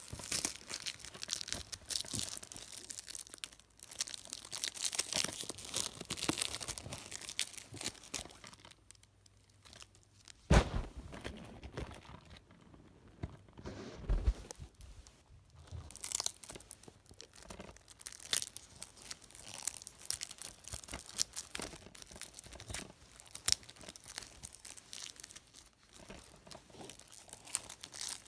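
Plastic DVD packaging being torn and crinkled by hand, with scattered small clicks and a few sharper knocks, the loudest about ten seconds in.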